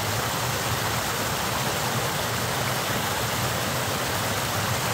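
Mountain stream rushing steadily over rocks in a small cascade.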